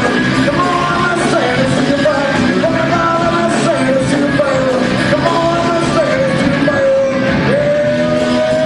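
Rock music with singing: a lead melodic line slides between notes over a steady band, ending in a long held note that rises slightly.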